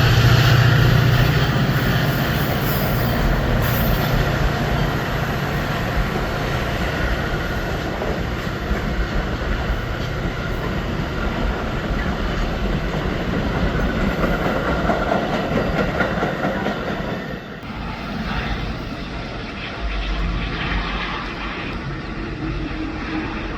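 A train rolling past, wheels clicking over the rail joints, loudest at the start with a low hum and slowly fading, then dropping off suddenly about seventeen seconds in.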